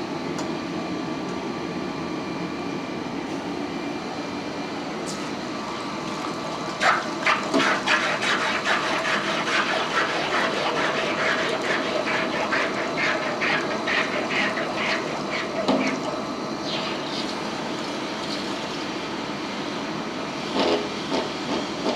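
Steady rushing of a running gas forge and a quench-tank circulation pump. From about seven to sixteen seconds in comes a rapid series of sputtering bursts, about three a second, as red-hot 1045 steel balls are quenched and the water boils against them.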